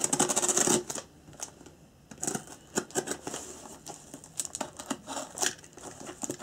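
A box cutter cutting open a small cardboard box: a loud scraping cut in the first second, then scattered clicks, scrapes and taps as the box is worked open.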